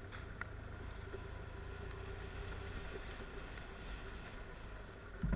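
Motorcycle engine running steadily at low speed as the bike rolls along a dirt forest track, a low hum with a few faint ticks and rattles.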